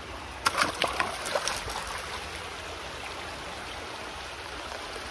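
A small stream running steadily over rocks. A quick cluster of sharp splashes and scrapes starts about half a second in and is over by the second second, as a hand grabs a banded water snake from shallow water under a boulder.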